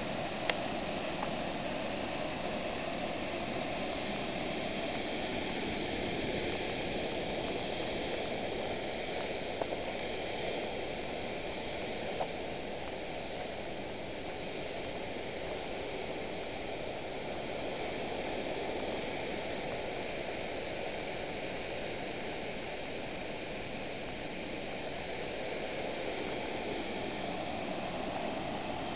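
Water rushing steadily over a small creek waterfall, with a couple of brief clicks about ten and twelve seconds in.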